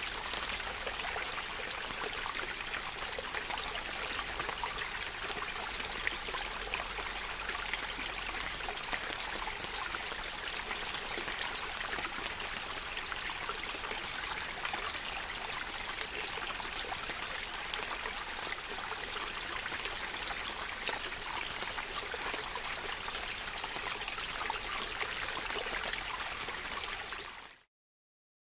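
Running water: a steady, even flow of a stream that cuts off abruptly shortly before the end.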